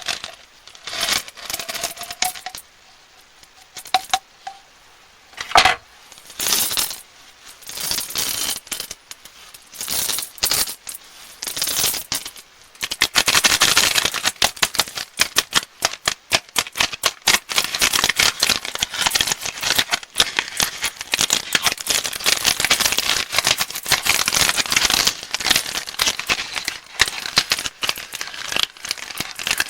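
Crinkling plastic candy wrappers being handled and torn open: separate crinkles for about the first half, then dense, continuous crackling from about halfway through.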